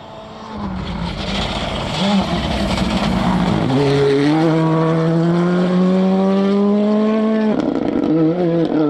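Rally car engine at full throttle, growing louder as it approaches, its note climbing steadily through one gear for several seconds. The note drops suddenly at a gear change near the end and picks up again in the next gear.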